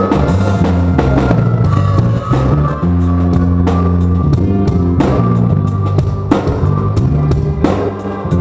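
Rock band playing live: drum kit with steady beats under held, stepping bass notes and guitar.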